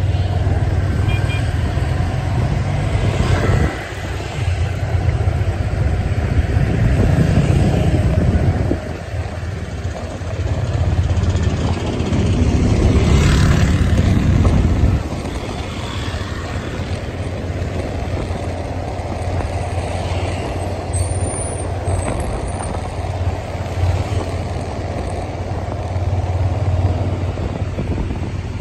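Diesel engines of large sleeper coaches running as they move along the road: a low rumble that swells and drops back in stretches.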